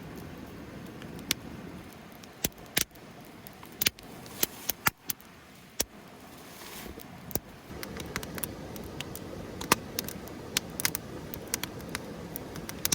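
Wood campfire crackling, with irregular sharp pops over a low steady hiss.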